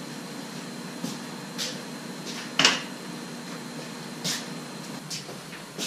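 A few scattered knocks and clicks, the loudest about two and a half seconds in, over a steady faint hum: a man getting up off a mechanic's creeper and walking across a concrete garage floor.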